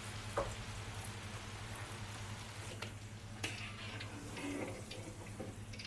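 Hot oil sizzling steadily in a wok as food deep-fries, over a low steady hum, with a couple of light clicks.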